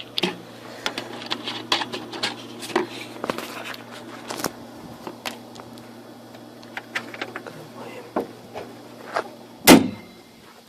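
A run of short clicks and knocks from things being handled, over a steady low hum, ending with one loud thump near the end, after which the hum stops.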